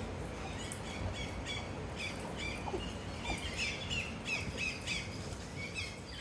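Birds squawking and chirping: a busy run of short, sharp, high calls, several a second, over a steady low rumble.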